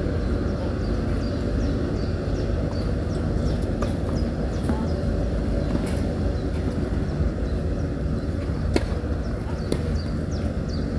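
Outdoor ambience: a steady low rumble with many short, high chirps throughout and a few sharp knocks, the loudest about nine seconds in.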